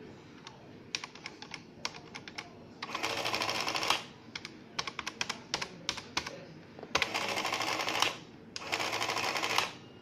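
Citizen CX-123 printing calculator: its plastic keys click as figures are keyed in, and three times the print mechanism chatters for about a second as it prints a line onto the paper roll, about three seconds in, about seven seconds in and near the end.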